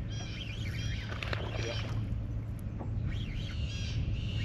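Birds chirping in short bursts a few times over a steady low hum.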